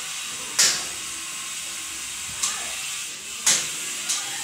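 Gas burners of a stainless steel four-burner range hissing steadily with lit flames. Four short, sharp clicks sound as the control knobs are turned.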